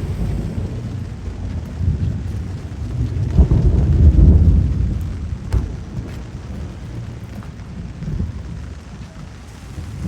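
Rain falling, with a deep rumble that swells about three seconds in and fades over the next two seconds, and a sharp click near the middle.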